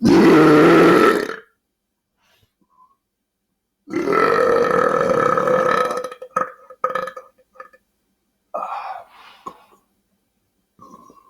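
A man belching loudly twice: a short belch right at the start and a longer, drawn-out one about four seconds in. Quieter throat sounds follow.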